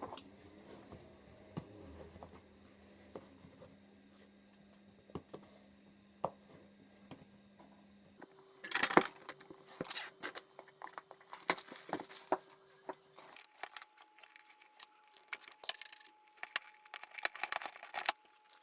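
Product packaging being opened and handled. For the first several seconds there are only quiet scattered clicks and taps. From about eight seconds in come louder bursts of rustling, tearing and scraping.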